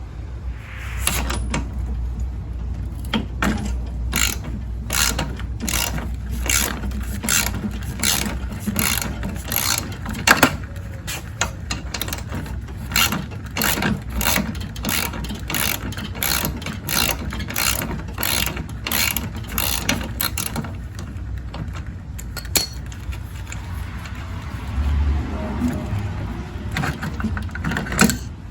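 Ratchet wrench clicking in steady, repeated strokes, about two a second, as a lawn mower wheel's bolt is worked loose; the clicking stops a little over twenty seconds in, leaving quieter handling noise.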